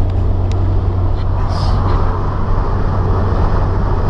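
Steady engine and road drone heard inside the cabin of a Mitsubishi Lancer Evolution X while it is being driven. The car is running super lean from a lack of fuel pressure, its aftermarket fuel pump fitted without its O-ring.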